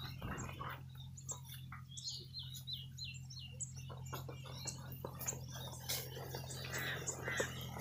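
Birds chirping in short, repeated notes, including a quick run of falling chirps about two seconds in, over a steady low hum and scattered small clicks and knocks.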